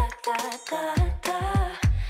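Background music: a sung vocal melody over a deep bass beat.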